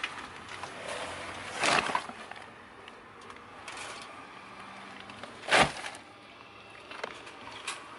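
Shopping bags being set down and shifted in a car trunk: two louder thuds, about two seconds in and again about five and a half seconds in, among lighter knocks and rustles of handling.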